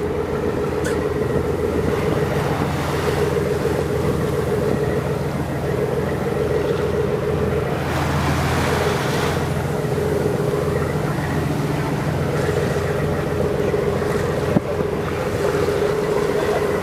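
Boat engine running steadily, a constant droning hum, under the hiss of water rushing past the hull; the hiss swells briefly about halfway through.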